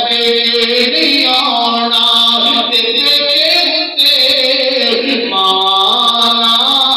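A preacher's voice chanting into a microphone in a sung, melodic style, holding long notes, with a brief break about four seconds in. A steady high-pitched hiss runs behind the voice.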